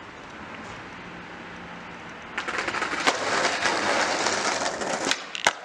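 Skateboard on rough asphalt. It is fairly quiet at first; about two and a half seconds in, the wheels start rolling with a loud, grainy noise. Sharp clacks of the board's tail and deck hitting the ground come about three seconds in and twice near the end.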